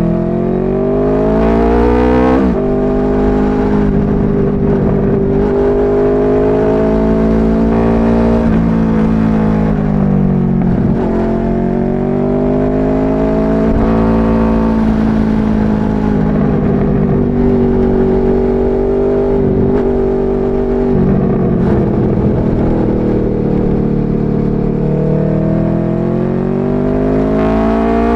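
Powerboat engine running under way, its pitch rising and falling several times as the throttle and load change, with sharp drops about two seconds in and near the end.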